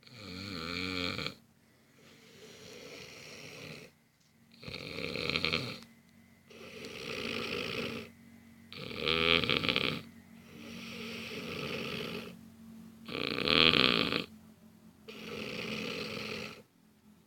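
A person snoring in deep sleep: a strong snore about every four and a half seconds, four in all, with a quieter, longer breath sound between each.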